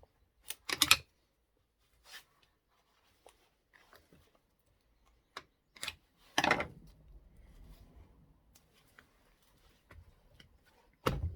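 A few short scrapes and knocks from the magnet and its clamp being handled, with quiet in between. There is a cluster just under a second in, two about six seconds in (the second a longer scrape), and another near the end.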